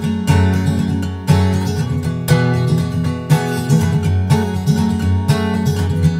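Solo acoustic guitar instrumental background music, plucked notes and chords with a steady beat of about one stroke a second.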